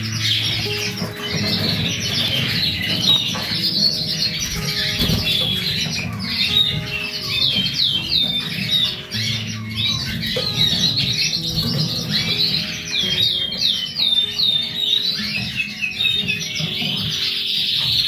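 Domestic canaries chirping and singing in quick, high, repeated sweeps, over background music with steady low held notes.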